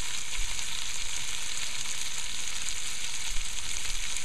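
Beef pieces coated in garam masala paste frying in a metal pot: a steady sizzle, with one brief knock a little over three seconds in.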